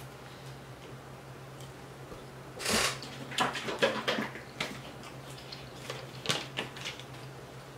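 Close-miked eating sounds: a short rustle of food being handled about two and a half seconds in, then scattered wet clicks and crackles of a burger meal being eaten, over a faint steady hum.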